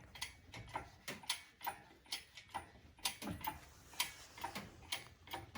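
Irregular sharp clicks and ticks, a few a second, from the lifting rig being worked to raise a heavy truck differential.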